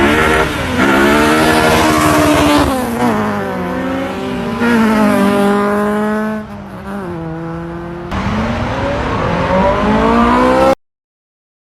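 Car engines revving and accelerating away one after another, engine pitch rising and falling through the gears, in loud grainy phone-recorded audio. The sound cuts off abruptly near the end.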